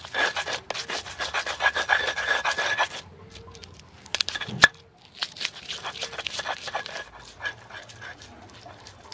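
Stone pestle grinding and scraping garlic, shallots and salt against a stone mortar (ulekan on cobek) in quick rubbing strokes. The strokes are loud for the first three seconds, then softer, with one sharp knock just before the five-second mark.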